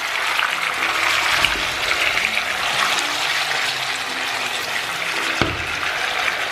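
Marinated chicken wings frying in oil in a hot frying pan: a steady, dense sizzle with fine crackles, and one knock near the end.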